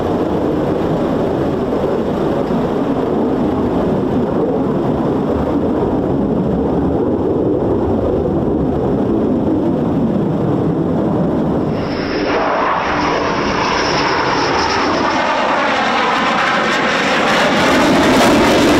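F-15E Strike Eagle twin-engine jet noise: a steady distant rumble, then from about twelve seconds in a nearer jet with a brief high whine and a sweeping, shifting sound that grows louder near the end as it comes in low over the runway.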